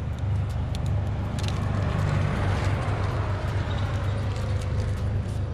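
Motor vehicle running: a steady low rumble, with a broad rush of noise that swells and fades about two to three seconds in.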